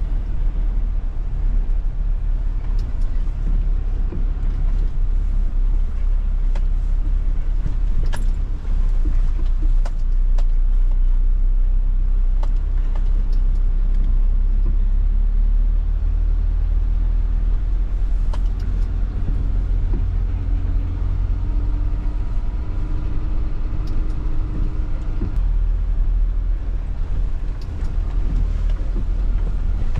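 Car driving, heard from inside the cabin: a steady low rumble of engine and tyres, with scattered small knocks and a faint engine hum in the second half.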